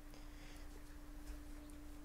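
Faint rustle and light ticks of trading cards being picked up and handled, over a steady low hum.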